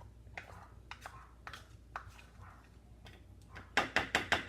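Light clicks and knocks of utensils and containers against a bowl. Near the end comes a quick run of six or seven sharp taps.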